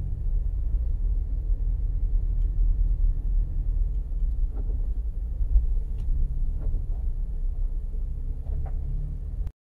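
Low, steady rumble of a Ford Bronco, heard from inside the cabin as it backs up slowly, with a few faint clicks. The sound cuts off suddenly near the end.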